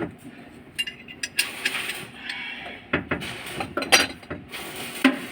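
Light metal clinks and knocks of tools and bolts against engine parts, irregular and scattered, the sharpest about three and four seconds in, as a part is fitted and bolted onto the engine's timing end.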